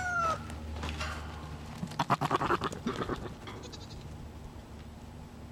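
A goat bleating once with a quavering call about two seconds in, just after a rooster's crow trails off at the start.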